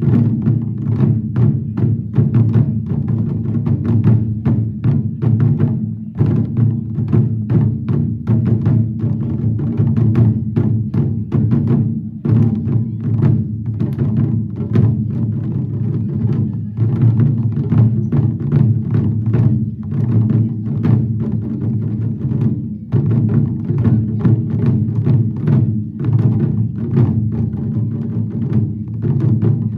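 Ensemble of barrel-shaped taiko drums struck with sticks in a fast, driving unison rhythm, several strokes a second, with a few short breaks between phrases.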